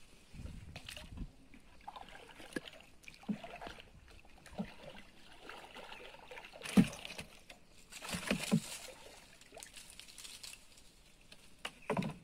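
Wooden paddle strokes in the water beside a small wooden canoe: dipping, sloshing and dripping, with scattered sharp knocks and splashes, the loudest about seven seconds in.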